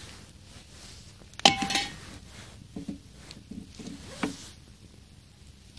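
Pieces of dry wood knocking together as they are handled at a log campfire. One sharp clink with a short ring comes about a second and a half in, then a few softer knocks.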